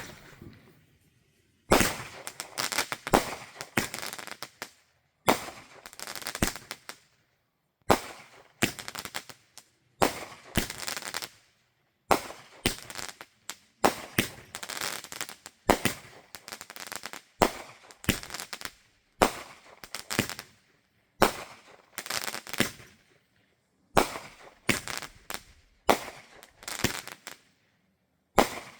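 A 25-shot, 200-gram consumer fireworks cake firing shot after shot. Each shot is a sharp bang followed by about a second of crackling, repeating roughly every second or so.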